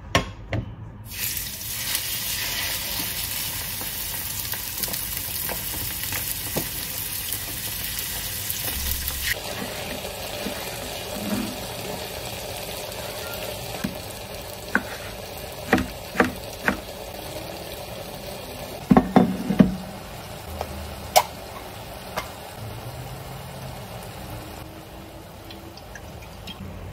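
Chicken fillet frying in a pan: a steady sizzle that comes in about a second in, loud at first and quieter after about nine seconds. Over the quieter sizzle, a knife knocks on a plastic cutting board several times while a tomato is sliced.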